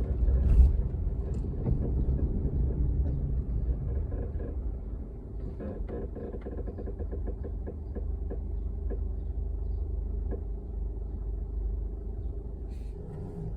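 2005 Toyota Corolla rumbling along on the road, with a run of short creaks in the middle.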